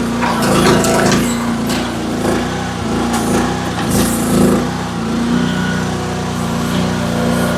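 AGT H12 mini excavator's engine running, its pitch dipping and recovering as it works under load, with several sharp knocks and cracks in the first few seconds.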